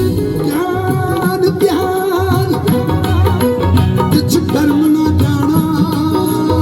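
Live Punjabi folk music played at a concert: a bending, ornamented melody line over a dense, steady accompaniment.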